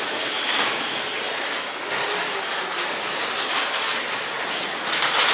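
Steady ambient noise of a busy railway station concourse: a continuous wash of crowd noise and footsteps.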